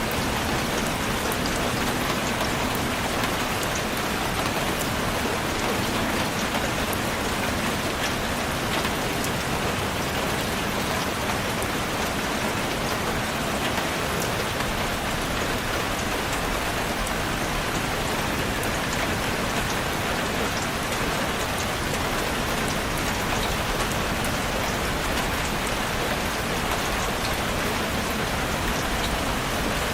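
Steady rain falling on a surface, a constant hiss with many fine drop ticks and no change in intensity.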